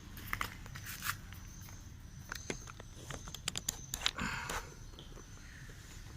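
Footsteps and small handling noises: scattered soft clicks and knocks, with a brief rustle about four seconds in. A faint steady high-pitched tone sits underneath.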